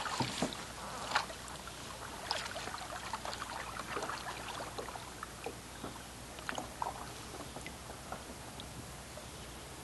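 Double-bladed kayak paddle strokes: the blades dipping into the water, splashing and pouring off water in scattered drips and trickles, with the strongest splashes at the start and about a second in.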